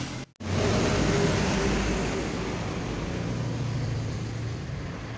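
Honda Verza's single-cylinder engine idling steadily, starting after a brief gap in the sound about a third of a second in.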